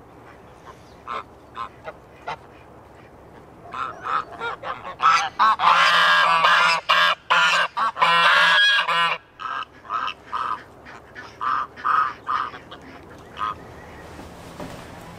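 Flock of domestic geese honking: a few separate honks at first, then many birds calling over one another from about four to nine seconds in, thinning back to scattered honks near the end.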